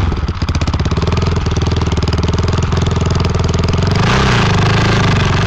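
Motorcycle engine of the inline three-wheel (IL3) prototype running as it rides off-road, with a brief rev up and back down about four seconds in.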